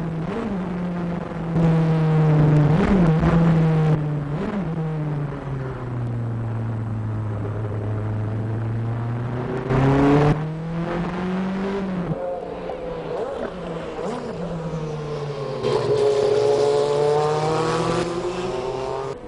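Nissan R90CK's twin-turbo V8 race engine at speed, heard from the cockpit. Its pitch sags low for a few seconds around the middle, climbs back, and drops sharply on an upshift. Near the end the sound switches to the car heard from trackside as it goes by.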